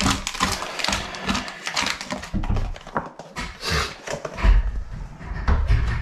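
Camping gear being handled on a wooden table: rustling snack wrappers and packets and light clinks of a backpacking pot and stove, with dull low thumps and rumbling in the second half.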